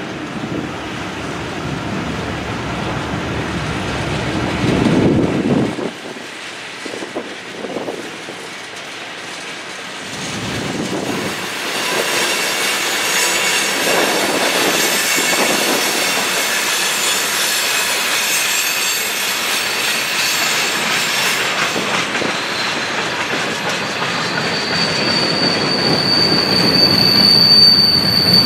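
Train rolling past with its steel wheels squealing on the rails. Several high squealing tones build from about twelve seconds in, and one piercing steady squeal takes over near the end.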